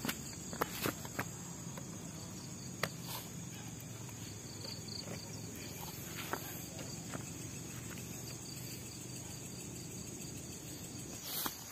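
Steady night insect chorus, a continuous high trill, with scattered sharp clicks and knocks: several in the first second or so, a couple in the middle and a louder cluster near the end.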